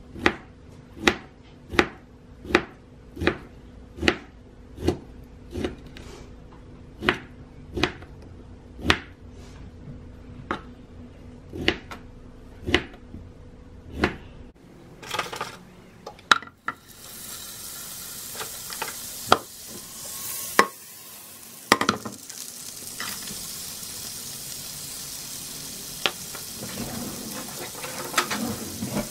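Kitchen knife chopping through a block of ham onto a plastic cutting board, a sharp knock a little under a second apart. About halfway through this gives way to butter and minced garlic sizzling in a frying pan, with a few clicks of utensils.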